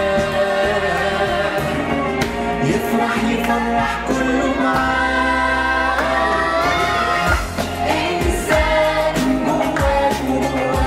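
Arabic pop song: several voices singing together over instrumental backing with a steady beat.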